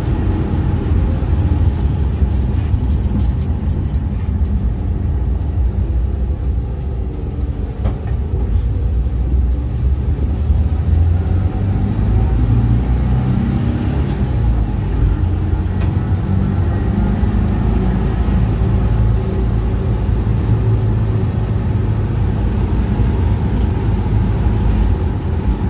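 Air-cooled flat-four engine of a vintage Volkswagen single-cab pickup running steadily on the road, with its drone and road noise swelling a little in places. The engine has a freshly rebuilt fuel pump and a new tune-up, and it runs well.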